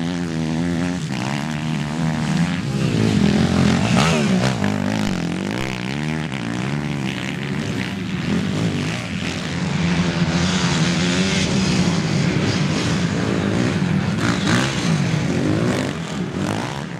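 Motocross dirt bike engines revving up and dropping back again and again as the bikes ride through the corners, with more than one engine at times.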